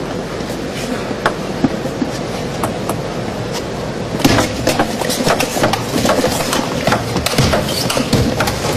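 Table tennis rally: a celluloid ball clicking off bats and table in quick succession from about four seconds in, over the steady hum of an arena crowd. A few single ball taps come before it.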